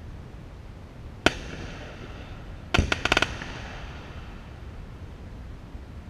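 Aerial fireworks shells bursting: one sharp bang about a second in, then a bang followed by a quick rattle of crackling reports lasting about half a second near the middle, each echoing off the surrounding mountains.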